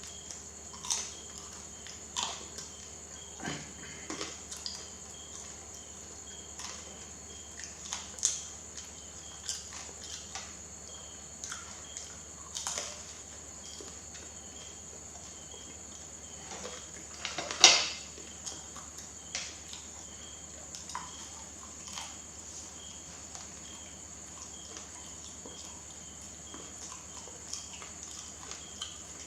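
Close-miked chewing of soft banana: wet mouth smacks and clicks at irregular intervals, with one sharper, louder smack a little past the middle.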